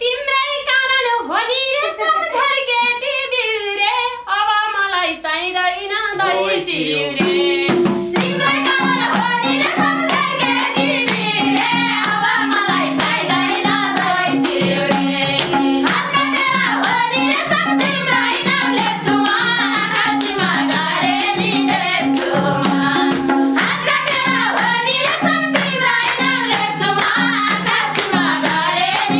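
Live Nepali dohori folk singing: a woman sings a line alone for the first several seconds, then hand drums and hand clapping come in with a steady beat as the group sings on.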